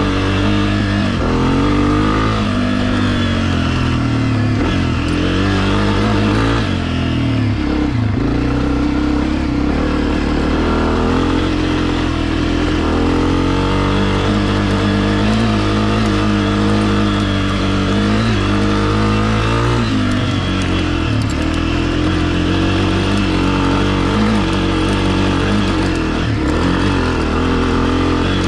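Honda CRF250F dirt bike's single-cylinder four-stroke engine pulling up a rocky trail climb, its pitch rising and falling over and over as the throttle is worked on and off.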